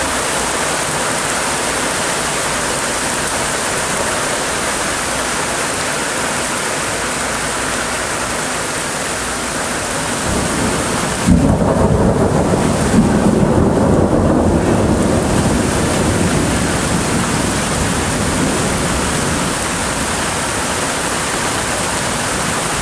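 Heavy rain falling steadily. About halfway through, a close thunderclap cracks suddenly, then rolls on as a low rumble for several seconds before fading back under the rain.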